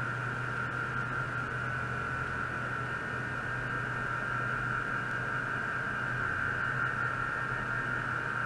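Ultrasonic probe setup running in a water bath, giving a steady high-pitched whine and a low electrical hum over a faint hiss. It holds the same level throughout without breaks.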